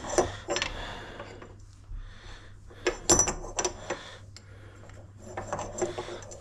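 Metal parts of a door lock handle set clinking and clicking as they are handled and fitted to the door, a few scattered sharp clicks with the busiest cluster about halfway through.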